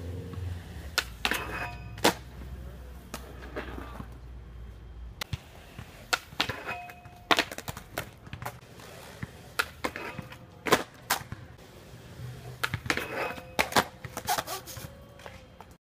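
Skateboard wheels rolling on concrete for the first few seconds, then a string of sharp clacks and knocks from the board popping, striking and landing on concrete over repeated trick attempts.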